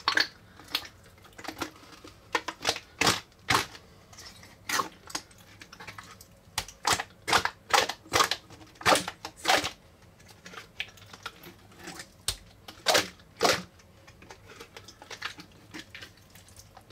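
Thin clear plastic putty container crackling and clicking in irregular bursts as it is squeezed and kneaded to force out stiff purple putty. The putty is stuck fast in the container and has lost its life.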